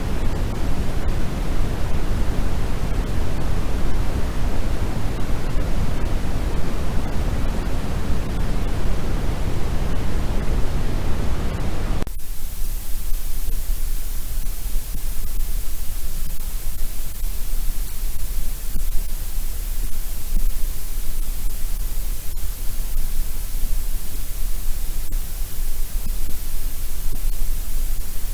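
Steady artificial noise of the kind played for sleep: a deep noise, strongest in the lows, that switches abruptly about twelve seconds in to a thinner, hissier noise at about the same loudness.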